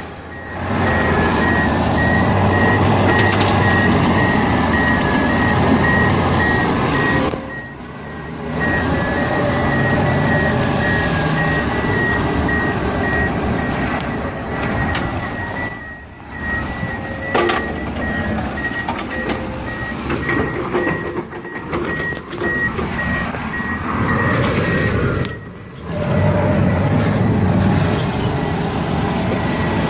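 Diesel engines of heavy machinery running hard, with a reversing alarm beeping at an even pace over them. The sound drops out briefly several times.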